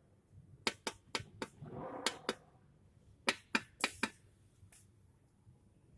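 Driver's seat spring unit of a Nissan X-Trail T32 clicking and knocking, about ten sharp, irregular clicks over the first few seconds, the last one near five seconds in. The noise is a fault in the seat's spring block.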